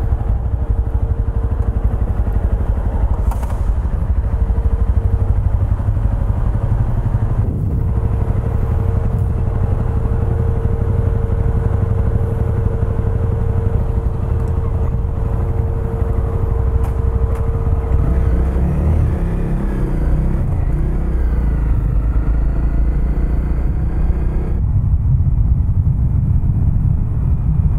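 Honda CRF250L single-cylinder engine idling with a steady rumble, then pulling away with the engine note rising and falling through the gears. Near the end, the motorcycle runs at road speed.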